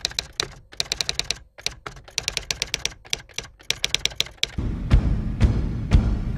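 Typewriter sound effect: rapid, irregular key clacks, with a short pause about a second and a half in. Near the end the clacks give way to a low rumbling background with a few louder knocks.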